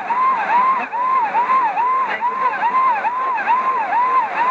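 Shortwave jamming signal on 9920 kHz: a siren-like alarm tone that swoops down and back up about twice a second, over radio static. A fainter copy of the sweep trails it, which sounds like an echo and which the uploader takes for a second transmitter.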